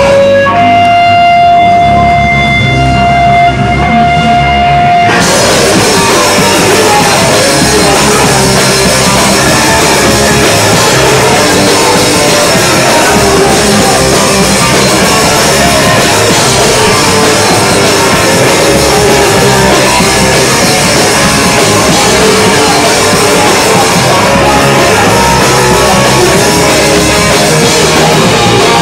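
Live rock band on a loud, crowded stage. For the first five seconds a steady whining guitar-feedback tone is held, then the full band comes in with distorted electric guitar and drums, loud and dense to the end.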